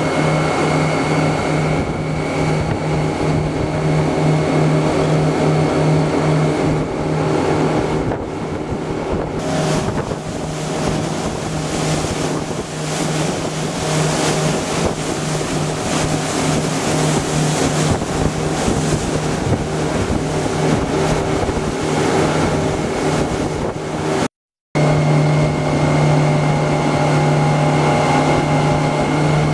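Outboard motor running steadily as the boat moves across the water, with wind buffeting the microphone and water rushing along the hull. The sound drops out for a moment about three-quarters of the way through.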